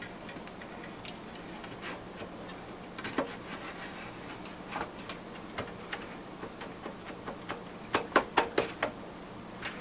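Circuit card being slid into the card cage of an HP 3561A signal analyzer: scattered clicks and light scrapes of the board edge in its guides, then a quick run of five or six sharper clicks near the end as it is pressed down into its connector.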